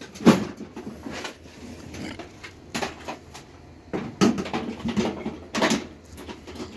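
Irregular knocks and clatters of hard parts being handled, about a dozen of them spread unevenly, the loudest just after the start.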